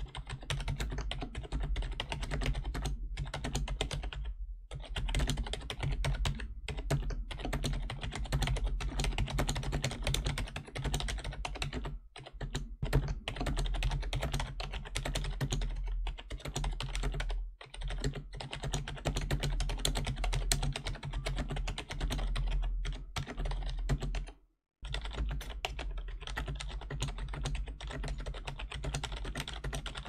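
Rapid, continuous typing on a Razer Cynosa Chroma membrane keyboard: quiet, mushy key presses with no click, over a steady low hum. The typing stops for a moment a few times, with one brief near-silent break about four-fifths of the way through.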